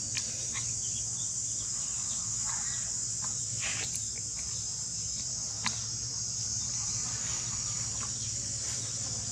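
Steady high-pitched drone of an insect chorus, with scattered faint short clicks and rustles over it.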